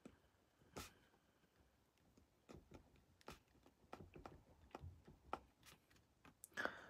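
Faint scratching and tapping of a ballpoint pen writing on a paper desk planner: one small click about a second in, then a run of short, irregular pen strokes.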